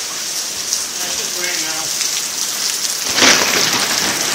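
Heavy rain pouring down onto a wet gravel yard and splashing into puddles, a steady hiss that swells louder about three seconds in.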